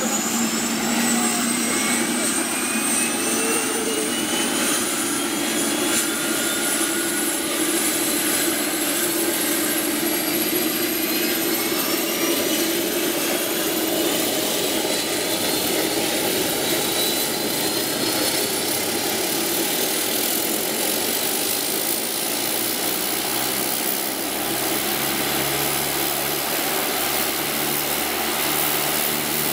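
Fuji T-7 trainer's Allison 250 turboprop engine starting up: a loud, steady rushing sound with several whines that climb slowly in pitch as the turbine spools up, and a lower tone joining about three-quarters of the way through.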